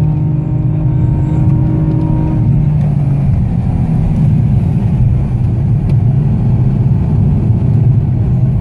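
BMW M4's twin-turbo straight-six heard from inside the cabin under hard driving, its engine note held high and then dropping in pitch about three seconds in, over a steady low rumble.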